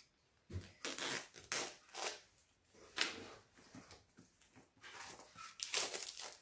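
Packaging being cut and ripped open with a blade: a series of short rasping strokes, several in the first couple of seconds and a louder cluster near the end.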